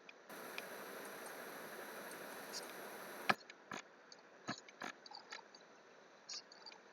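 Computer mouse clicks at a desk: a few sharp clicks and lighter ticks, the first and loudest ending a stretch of steady hiss a little over three seconds in.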